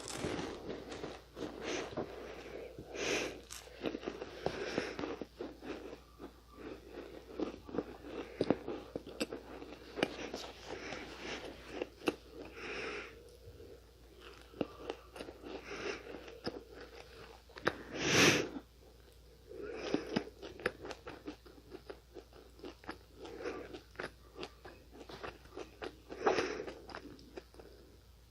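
Crunchy eating of Nunettine, a crisp, flaky Korean puff-pastry snack: repeated crisp bites and crunchy chewing, irregular throughout, with the loudest crunch about eighteen seconds in.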